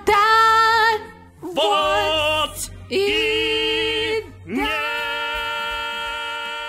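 A voice singing the song's closing phrases: three short sung phrases, then one long held final note that starts about four and a half seconds in and slowly fades.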